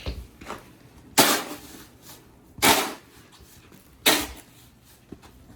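Snow shovel digging and scraping into snow in four sharp strokes, about one every second and a half, each trailing off quickly.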